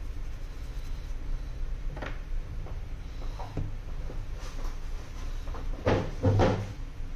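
Light knocks and taps of small objects being handled and set down on a repair bench. The loudest is a pair of thuds close together about six seconds in. A low steady hum runs underneath.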